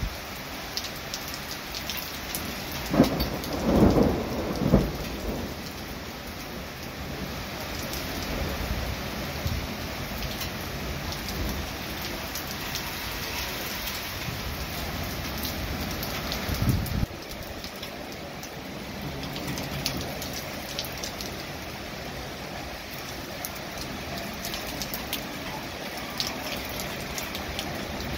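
Steady rain falling with drops pattering close by, during a thunderstorm. About three seconds in a thunderclap cracks and rumbles for around two seconds, and a shorter low rumble comes a little past halfway and stops suddenly.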